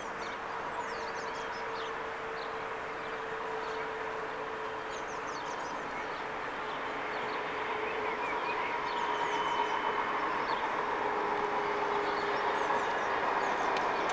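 DÜWAG low-floor tram approaching along its track, its running noise and whine growing louder over the last several seconds. Birds chirp now and then.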